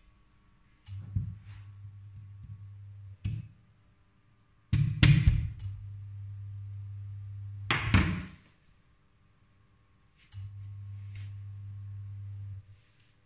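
A low electrical hum that switches on and off with a click, three times for two to three seconds each, typical of an induction cooktop cycling its power while heating a frying pan. Two loud knocks, the loudest sounds, come about five and eight seconds in.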